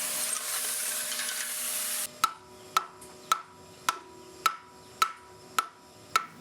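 A steady hiss for about two seconds, then a run of evenly spaced hammer blows, about two a second, each with a short metallic ring: a hammer and chisel chipping leftover investment and runners off a cast bronze section.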